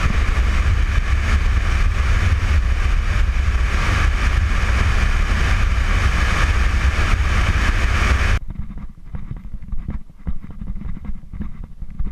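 Steady rush of wind and road noise on a camera mounted on a car's hood at highway speed, with a strong low rumble. It cuts off suddenly about eight seconds in, giving way to quieter, gusty wind buffeting on the microphone.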